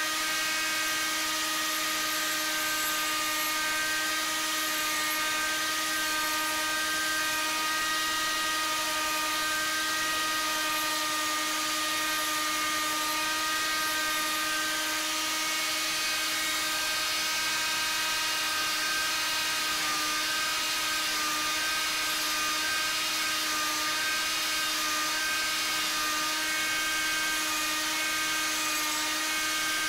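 Hand-held power-carving mini grinder with a foam-backed sanding pad running steadily while sanding the hollow of a wooden bowl: a constant high motor whine over the hiss of abrasive on wood.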